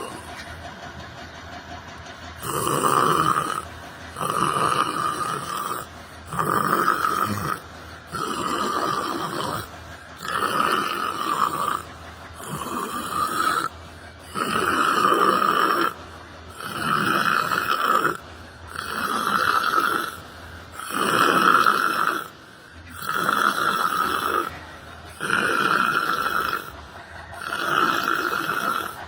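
A person snoring in a steady rhythm, one snore about every two seconds.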